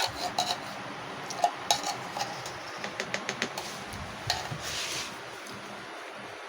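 Scattered clinks and knocks of metal kitchenware and cans, with a short scrape near five seconds, then the handling stops.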